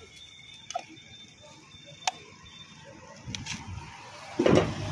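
Heavy curved knife chopping at a green tender coconut: a few sharp cuts into the husk about a second apart, then a louder, heavier knock near the end.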